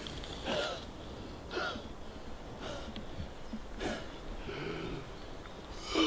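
A man breathing hard and panting, about one loud breath a second, out of breath after exertion.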